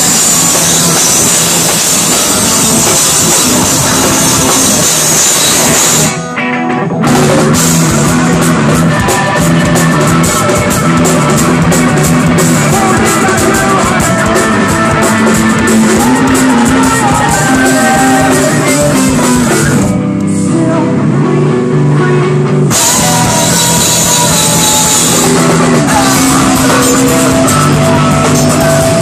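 A live post-hardcore band playing loud: distorted electric guitars, bass and a drum kit, heard from right beside the stage. The band stops for a split second about six seconds in, and the cymbals drop out for a couple of seconds around twenty seconds in while the guitars keep going.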